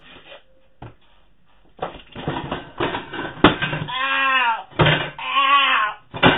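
Kids shrieking and wailing in long, wavering high-pitched cries, after a stretch of clattering with a sharp knock about three and a half seconds in.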